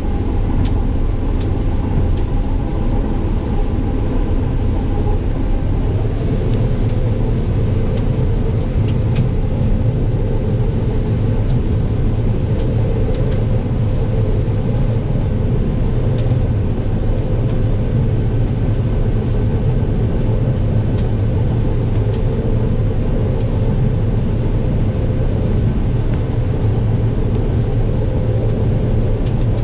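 Combine harvester running steadily while harvesting corn: an even engine and machinery drone, with a few faint scattered ticks.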